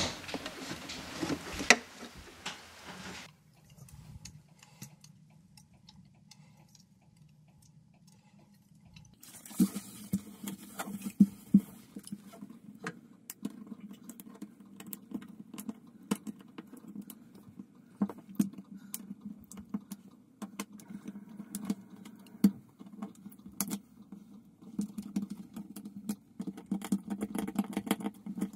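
Fingers scratching and picking at old sealant around a shower tray's drain opening: irregular small scrapes and clicks that begin about a third of the way in, after a few seconds of quiet.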